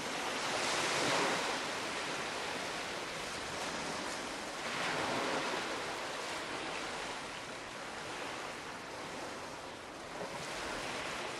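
A steady, surf-like rushing noise that swells about a second in and again around five seconds in, then settles.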